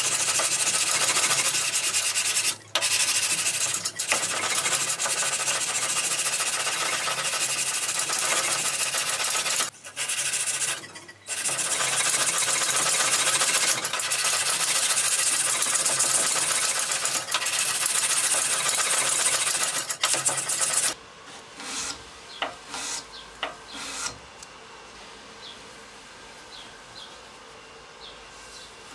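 Sandpaper on a block scrubbed along the flat of a heat-treated steel knife blade held in a vise: a continuous, loud, harsh scratching with a few brief pauses. About two-thirds of the way through it stops, leaving a few light scrapes and then a quiet background.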